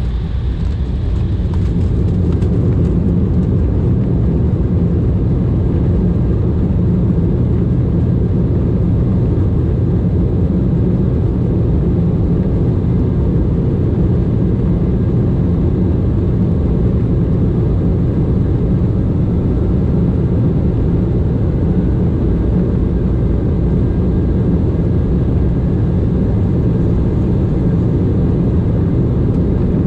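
Airliner cabin noise: a loud, steady low rumble of the engines and rushing air heard from inside the passenger cabin, swelling slightly in the first couple of seconds and then holding even.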